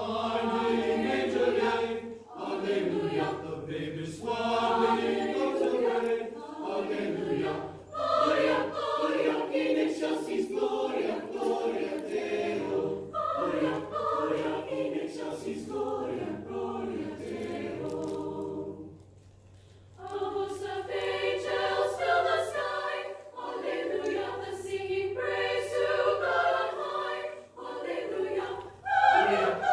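Mixed-voice high school choir singing in phrases, with a short pause about two-thirds of the way through before the voices come back in.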